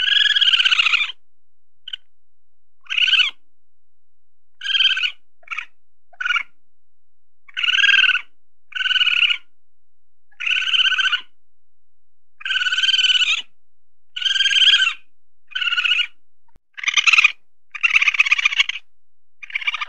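Weasel calling: a series of about fifteen short, high-pitched calls, each under a second long, coming at uneven gaps of one to two seconds.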